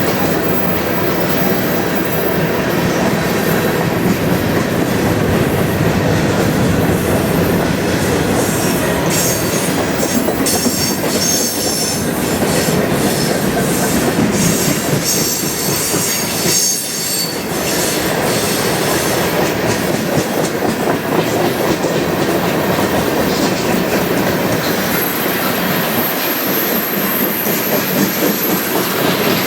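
Cars of a long CN freight train rolling past: a steady rumble and clatter of steel wheels on rail. On the curve, high-pitched wheel squeal comes and goes through the middle and returns as a steady whine near the end.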